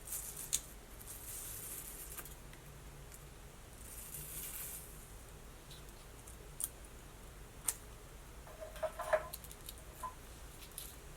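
Faint rasping and crackling of Velcro hair rollers being pulled loose from hair, in two soft stretches, with a few sharp clicks.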